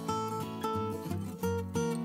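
Background music led by a plucked acoustic guitar, with notes changing every few tenths of a second.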